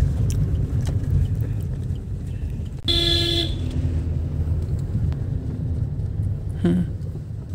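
Steady low road and engine rumble inside a moving car's cabin, with one short car horn toot about three seconds in.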